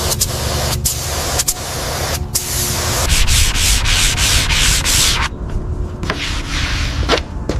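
Sanding: gritty rubbing strokes over a steady low motor hum, loudest in the middle stretch, with a short lull near the end before the strokes resume.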